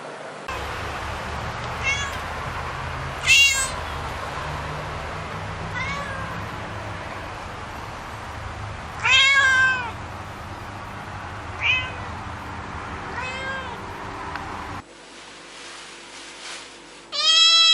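Domestic cat meowing repeatedly: short separate meows every second or few, two of them louder and longer, over a steady low hum that stops about fifteen seconds in. A long, loud meow begins near the end.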